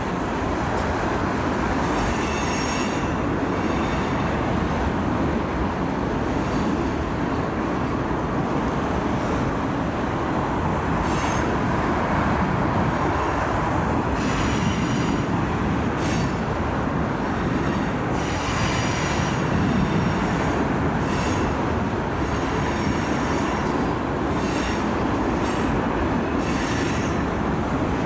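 Train cars rolling past on the rails in a steady rumble, with high-pitched wheel squeal coming and going every couple of seconds.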